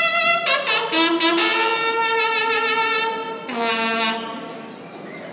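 Bugles of a Mexican banda de guerra sounding a series of long held notes that step from pitch to pitch, the last note dying away near the end.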